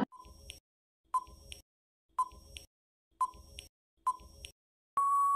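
Quiz countdown-timer sound effect: five short beeps about a second apart, then a longer steady beep as the count runs out.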